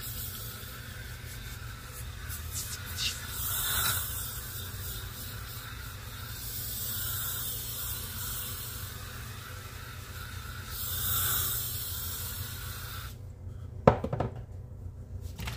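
Powdered cleanser shaken from a shaker can onto a powder-filled sink: a soft hiss that swells and fades several times. The hiss stops abruptly near the end, followed by a sharp click.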